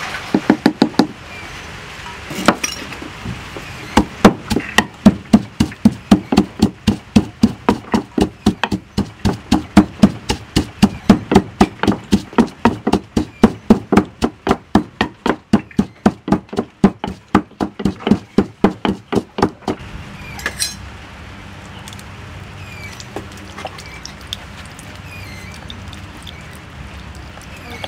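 Wooden pestle pounding fresh chilies and garlic in a wooden mortar: steady, regular thuds, about two to three strokes a second. The pounding stops about two-thirds of the way through.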